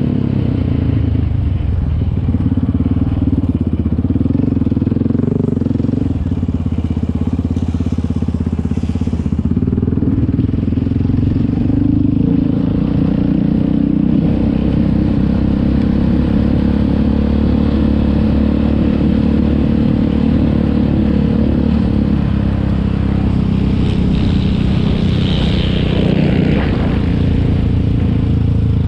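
Yamaha Raptor 700 quad's single-cylinder four-stroke engine running under throttle while being ridden, heard from the rider's seat. The engine note holds fairly steady, with its pitch shifting now and then as the throttle changes.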